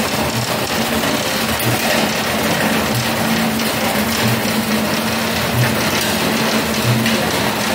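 Inclined screw conveyor running under load, its motor humming steadily while granular feed pours out of the discharge spout in a continuous hiss. A soft low pulse repeats about every 1.3 seconds.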